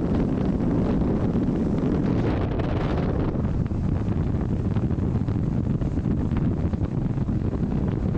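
Wind blowing across the microphone: a steady, loud rumble that is heaviest in the low end, with no breaks.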